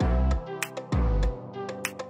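Instrumental background music: a beat of deep kick drums and sharp ticks over held chords.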